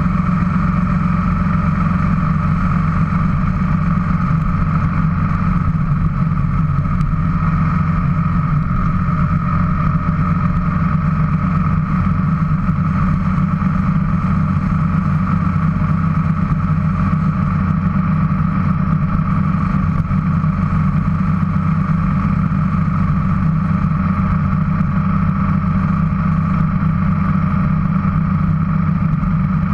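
Motorcycle engine running at a steady cruising speed on the highway, an even drone that holds without change throughout.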